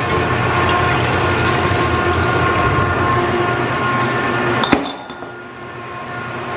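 Steady hum of dairy processing equipment with glass milk bottles clinking, then one sharp clink about four and a half seconds in, after which the sound is much quieter.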